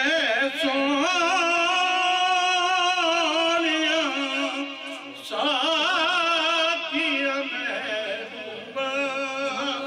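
A man's solo unaccompanied voice singing a Punjabi naat, holding long, wavering melodic notes with vibrato, with two short breaks, one midway and one near the end.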